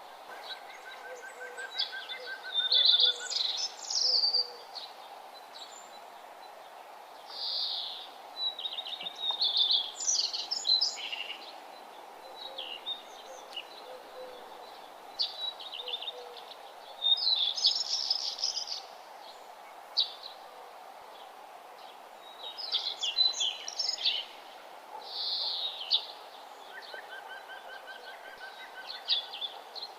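Songbirds singing and chirping in short bursts every few seconds, over a steady background hum.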